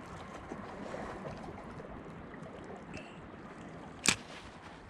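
Steady low wash of sea water and wind, with one sharp click about four seconds in from handling the spinning rod and reel.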